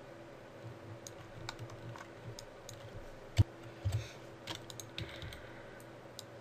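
Computer keyboard keys and a mouse clicking irregularly, with one sharper, louder clack about three and a half seconds in, over a faint steady hum.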